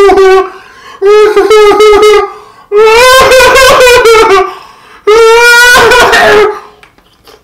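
A man wailing in pain: three long, loud, held cries a little apart, after the tail of another, from his mouth burning on extremely spicy hot chicken.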